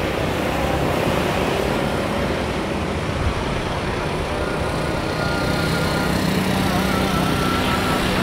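Steady roar of road traffic mixed with a distant Airbus A330 airliner's jet engines on the runway. A low steady hum comes in about six seconds in.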